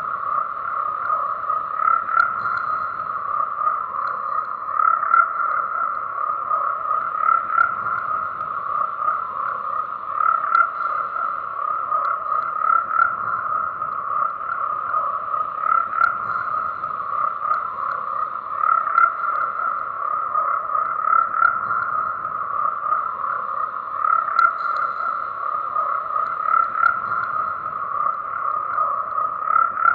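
Frogs croaking in a dense, unbroken chorus, with louder calls standing out every two or three seconds.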